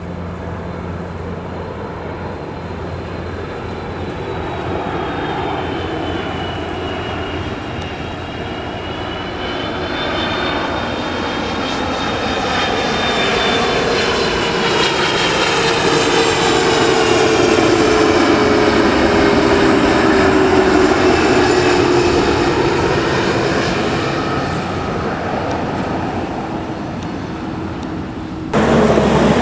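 Airbus A330-300 jet engines running as the airliner passes the airport: a loud jet roar that builds to its loudest past the middle and then eases, with an engine whine that falls in pitch as it goes by. Near the end the sound cuts abruptly to a different, louder engine sound.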